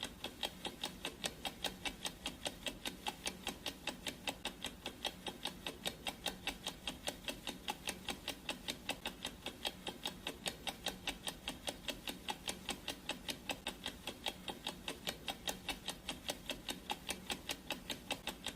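Clock ticking sound effect: rapid, even ticks at several per second, like a countdown timer.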